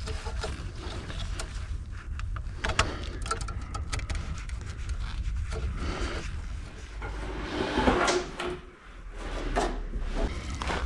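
Knocks, clicks, rubs and scrapes of hands working with tools and materials during an electrical installation, with a louder scrape about eight seconds in.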